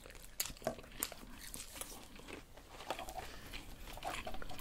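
Close-miked eating: biting into and chewing a bacon cheeseburger, with wet mouth sounds. Several sharp crunches come in the first second.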